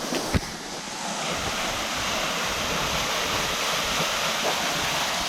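Small waterfall splashing steadily into a pool, a little louder from about a second in. One sharp knock near the start.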